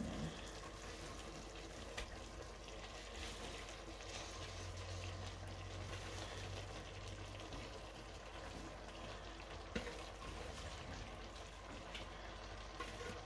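Pot of tomato and palm-oil stew simmering with a low sizzle as wet spinach is added and pressed in by hand, with a few light knocks.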